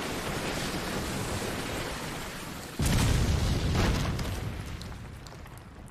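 Dramatic anime sound effects: a steady rushing roar, then a sudden heavy boom about three seconds in that fades away over the following seconds.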